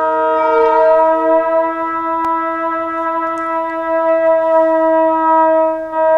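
Long, steady, brass-like musical tones, with more than one note held at once.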